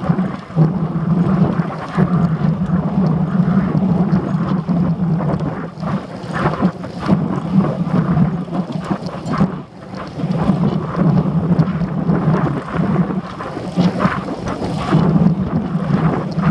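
Wind buffeting the microphone of a handlebar-mounted camera on a road bicycle in motion: a loud, uneven rumble that rises and falls with the gusts.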